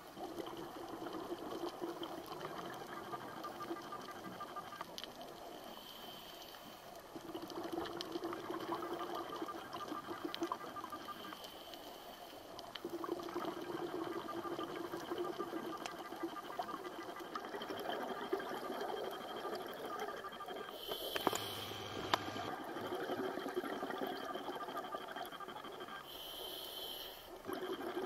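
Underwater recording of water and bubble noise that swells and eases in slow cycles of several seconds, with two louder, bubbly rushes about 21 and 26 seconds in.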